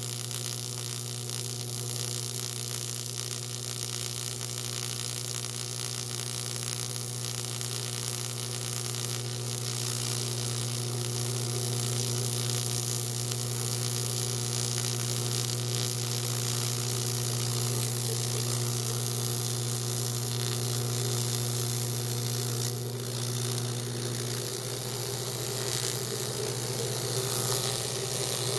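AC TIG welding arc on aluminum, buzzing steadily with a low mains hum and a high hiss as the bead is run.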